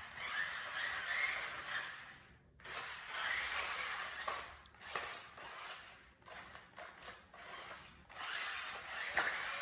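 Small electric drive motors of a toy remote-control stunt car whirring in several spurts, with short pauses between them and a few sharp clicks and knocks as the car bumps about.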